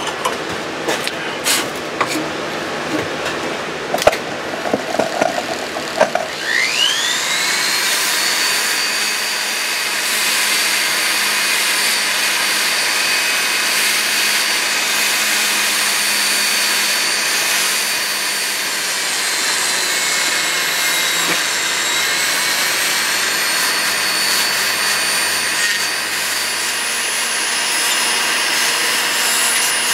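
A few clicks and knocks of handling, then about six seconds in a jeweler's rotary handpiece spins up with a rising whine and runs at a steady high pitch while a small abrasive wheel works the fine silver pendant. The pitch sags briefly about two-thirds of the way through.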